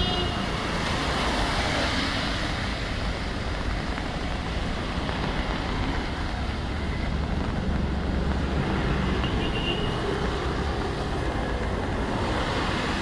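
Steady city traffic on a wet road: engines rumbling and tyres hissing on the wet surface, with a short horn toot right at the start and a faint one about nine seconds in.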